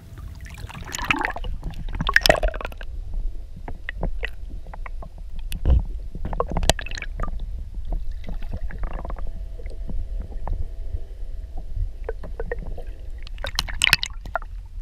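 Lake water sloshing and gurgling around a camera held at and below the surface as a smallmouth bass is released, with a steady low rumble and scattered sharp splashes. The splashing is loudest about two seconds in and again near the end.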